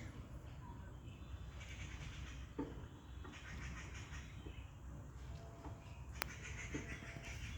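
Outdoor nature ambience: a steady low rumble with faint high chirping and a few short animal calls, and a sharp click about six seconds in.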